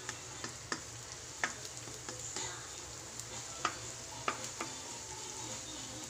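Minced garlic sizzling in oil in a metal wok while a spatula stirs it, with a steady frying hiss and several sharp, irregular clicks and scrapes of the spatula against the wok.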